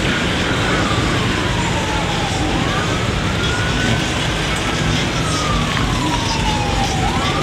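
Emergency vehicle siren on a slow wail, its pitch rising and falling in long sweeps of about three and a half seconds each, over a steady loud background noise.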